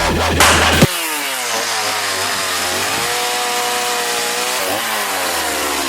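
Background music cuts off about a second in, and a chainsaw takes over, running steadily as it cuts wood. Its pitch dips as it works and rises again near the end.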